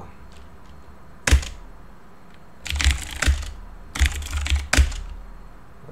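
Computer keyboard keystrokes: one sharp keypress about a second in, then two short quick runs of keys.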